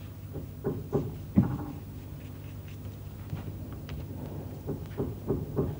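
Scattered small taps and knocks of a paintbrush and craft materials being handled on a table while string glued to a cardboard block is painted; the sharpest knock comes about a second and a half in, with a few more near the end, over a steady low hum.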